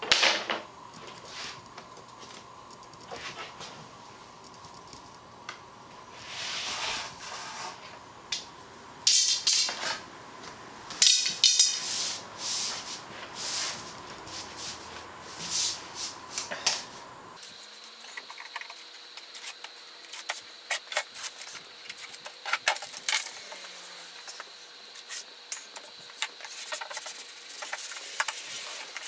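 Wooden dowels sliding and knocking on the workbench as they are pulled from between a plywood panel and contact-cemented veneer, with sharp knocks in the middle. About two-thirds of the way in this gives way to a hand tool scraping fast and hard over the veneer to press it down.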